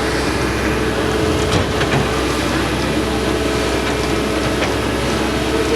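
Heavy diesel engine of earthmoving machinery running steadily, a continuous drone with a few short knocks about a second and a half in, again soon after, and near the end.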